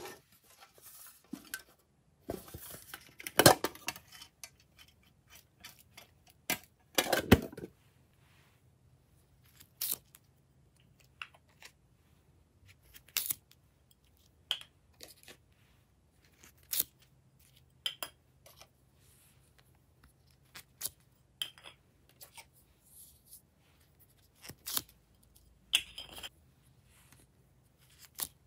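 Hands handling small plastic containers and clay molds on a tabletop: scattered sharp clicks and taps every second or two, with louder bursts of plastic handling noise about three and seven seconds in.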